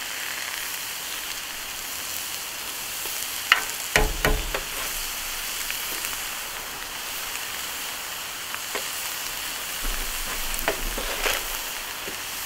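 Vegetables sizzling steadily on a propane flat-top griddle, with a few sharp clicks and knocks about four seconds in and again near the end.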